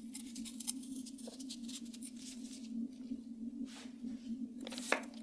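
Kitchen knife peeling the skin off a taro root: a run of faint, short scrapes, with a few sharper clicks near the end, over a steady low hum.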